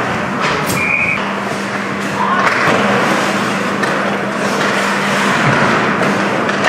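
Ice hockey game noise: skates scraping and carving on the rink ice under a steady hum. A brief high tone sounds about a second in.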